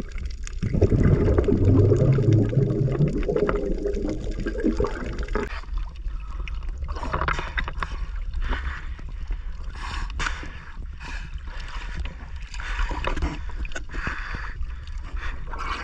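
Water splashing and sloshing around a small fishing boat at sea, in irregular bursts over a steady low rumble. The first five seconds hold a louder, lower stretch.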